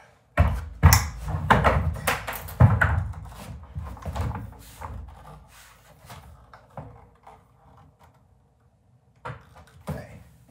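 Plywood cart parts being handled and set in place: a quick run of loud wooden knocks and thumps over the first few seconds, then lighter scattered clicks, a short pause, and two more knocks near the end.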